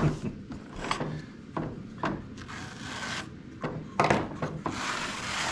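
A Gerstner machinist tool chest's wooden drawer being handled: a handful of sharp knocks and clacks, with stretches of rubbing and scraping in between and a longer rub near the end.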